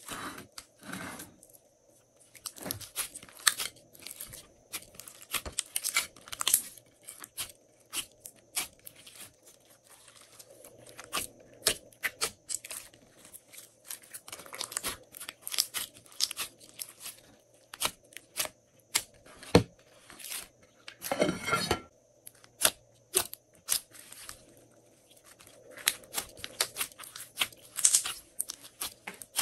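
Glossy slime being stretched, folded and squeezed by hand, giving irregular sticky clicks and pops, with a longer run of crackling about two-thirds of the way through.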